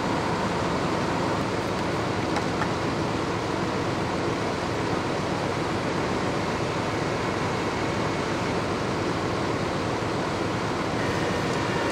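Steady, even rumble of an idling engine, with a faint high hum held through it.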